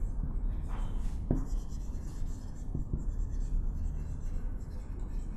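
Marker pen writing on a whiteboard: faint scratching strokes with a few light taps, over a low steady hum.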